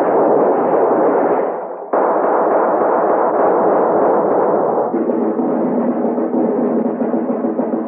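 Radio-drama sound effects of a battle: a dense, continuous din that breaks off briefly and cuts back in abruptly about two seconds in. From about five seconds in, orchestral music rises in under the din.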